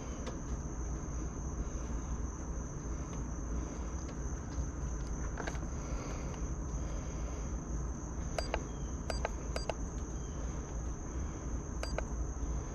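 Steady high-pitched cricket chirring over a low rumble, with a few faint clicks in the second half.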